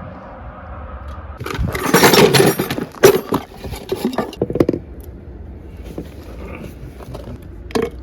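Clattering and clinking of hard objects being handled, like tools or fittings, loudest in a burst of about a second and a half, followed by scattered sharp knocks and one more knock near the end.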